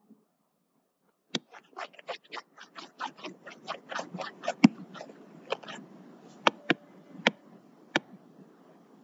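Pen stylus tapping and scratching on a tablet screen during handwriting: an irregular run of quick clicks and short scrapes, several a second, starting about a second in.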